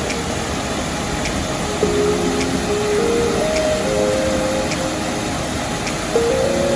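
A simple background-music melody of sustained notes stepping up and down, with a light tick about once a second, over a steady rushing noise.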